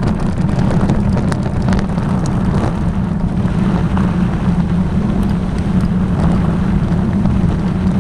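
A vehicle engine running steadily with a constant low hum, with scattered light clicks and rattles over it.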